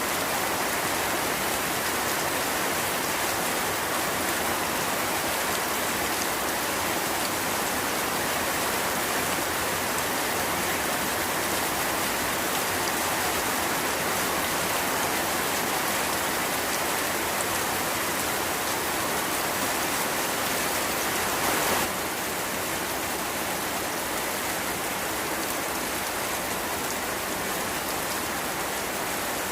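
Steady, dense rain falling, an even hiss of drops. About three quarters of the way through it swells briefly, then carries on slightly softer.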